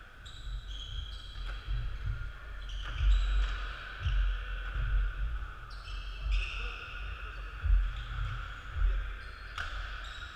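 Irregular dull thuds of players' feet on a wooden sports hall floor, with indistinct voices echoing in the hall.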